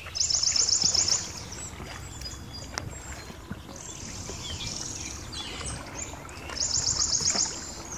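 A small bird sings a high, rapid trill of about ten notes a second, three times, each lasting about a second, over low steady outdoor background noise.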